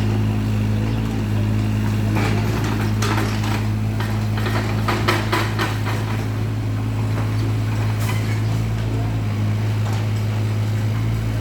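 Backhoe's diesel engine running steadily, with a series of sharp knocks from about two to five seconds in and another around eight seconds.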